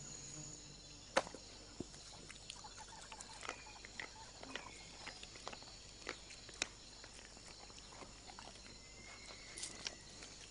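Western lowland gorillas feeding on wild mangoes: faint, scattered crunches and snaps of chewing and breaking vegetation, the sharpest about a second in, over a steady high drone of forest insects.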